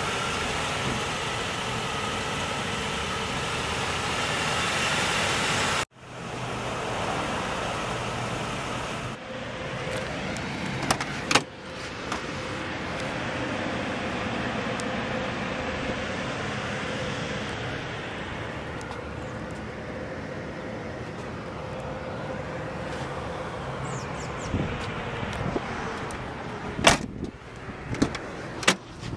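Door of a 1994 Buick Roadmaster Estate Wagon: the latch clicks and the door knocks sharply a couple of times about 11 seconds in, and again in several clicks near the end as the exterior handle is pulled, over a steady hum.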